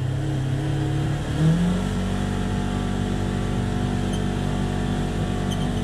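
Polaris Ranger XP 1000 side-by-side's engine running under acceleration, heard from inside its closed cab. The engine note steps up in pitch about a second and a half in, then holds steady.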